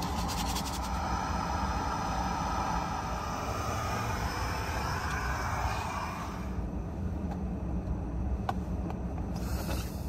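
Canister camping stove burner running with a steady hiss under a pot of water heating, over a low rumble. The hiss drops away about six seconds in.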